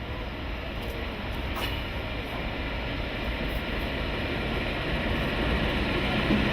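Train rumbling along the track, a steady rumble that grows gradually louder as it approaches.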